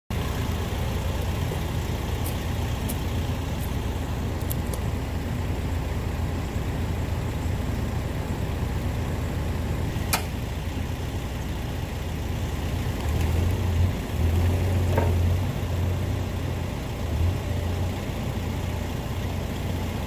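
Diesel engine of heavy equipment idling steadily, louder for a few seconds about two-thirds of the way through. A few faint metal clicks come early, and a sharp clink of chain on the steel bucket comes about halfway.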